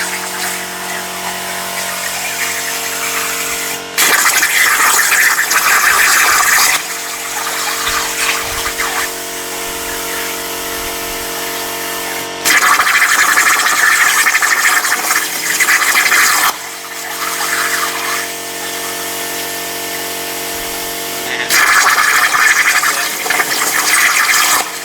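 CNC plasma cutter with torch height control: the plasma arc hisses loudly in three bursts of a few seconds each, each starting and stopping abruptly. Between the cuts the machine runs with a quieter steady hum.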